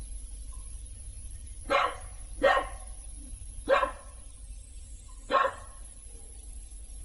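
An animal barking four times: short sharp barks spread over about four seconds, the second and third a little louder.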